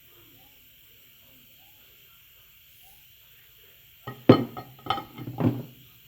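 Hard objects clinking and knocking together, three sharp clatters in quick succession about four seconds in, over a low hum.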